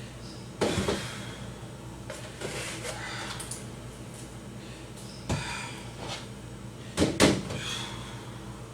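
Knocks and clunks of refrigerator shelves and drawers being handled and set in place, a few separate impacts with softer rattling between them. The loudest is a double knock about seven seconds in.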